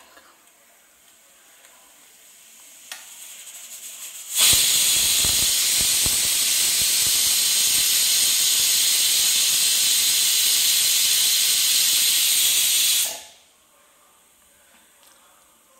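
Stainless-steel pressure cooker on a gas burner letting off its whistle. A faint hiss builds for a couple of seconds, then steam blows out past the weight valve in a loud, steady hiss for about nine seconds and cuts off. The cooker has come up to pressure, and each such whistle is counted to time the cooking.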